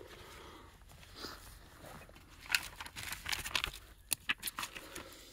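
Faint handling noises of a paper book being searched: scattered rustles, small taps and clicks, busier from about halfway through.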